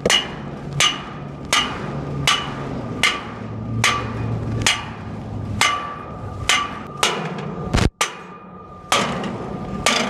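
Repeated hammer blows, roughly one every three-quarters of a second at a slightly uneven pace, each followed by a brief metallic ring, with one short gap about eight seconds in.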